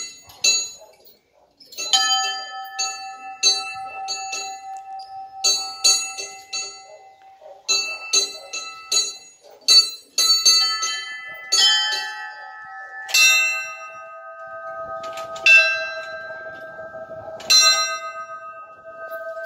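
Orthodox church bells rung by hand from the belfry with ropes tied to the clappers: the small bells are struck in a quick, uneven pattern, and a lower bell takes over with fewer strikes, left to ring on, for the last few seconds.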